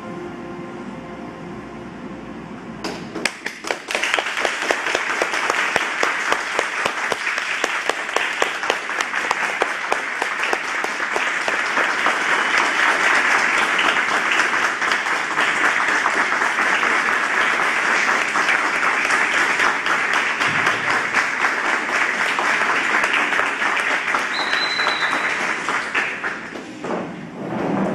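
Audience applauding: the clapping breaks out about three seconds in as the music ends, holds steady, and dies away near the end.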